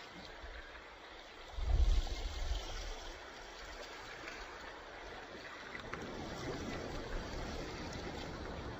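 Ocean surf washing ashore, a steady rushing hiss of moving water. A low rumble comes in about a second and a half in, and the wash grows fuller in the last few seconds.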